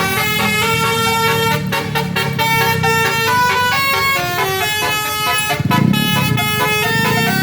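Bus basuri telolet horn, an electric multi-trumpet musical horn, playing a tune of stepped notes that change every few tenths of a second. A lower wavering tone joins about two-thirds of the way in.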